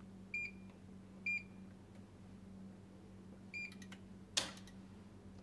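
Three short, high beeps from a Fluke 1664 FC multifunction installation tester as its keys are pressed during an RCD ramp trip test, the third followed by a few light clicks. About four seconds in comes one loud, sharp click, over a steady low hum.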